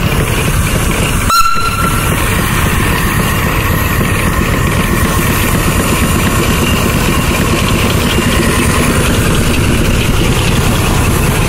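Steam-powered sawmill machinery running with a steady, dense noise. About a second in there is a brief high-pitched tone.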